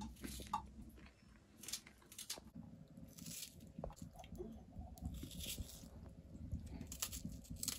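Knife slicing through a red onion held in the hand: a series of short, irregular crunching cuts.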